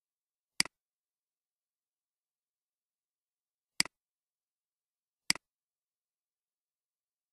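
Three computer mouse clicks spaced a few seconds apart, each a sharp click followed at once by a softer one, with dead silence between them.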